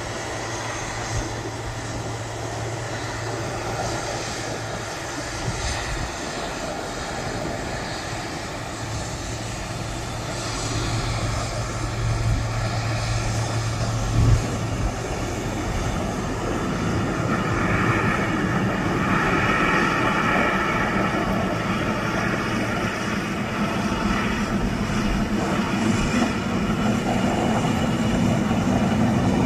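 Twin GE90-115B turbofans of a Boeing 777-300ER running as the airliner rolls along the runway past the listener, a steady jet-engine noise that grows gradually louder through the second half. A brief low bump stands out near the middle.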